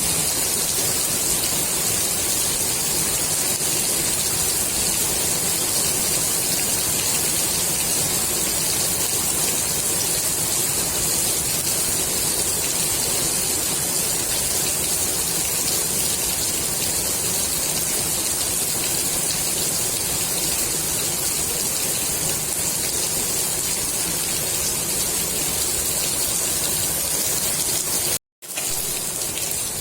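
Steady rain falling on the water of a swimming pool: an even hiss, strongest in the high pitches. Near the end it cuts out completely for a fraction of a second, then comes back slightly softer.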